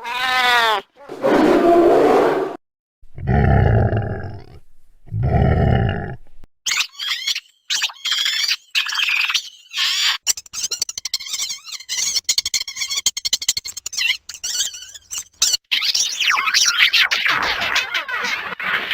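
Alien creature sound effects: a few separate low growls in the first seconds, then a long run of rapid, high-pitched squeaky chattering with quick pitch glides.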